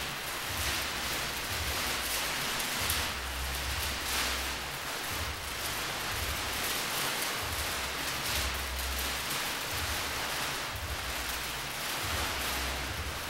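Continuous crinkling and rustling of a large sheet of stiff white paper-like material wrapped around a moving dancer, with intermittent low rumbles underneath.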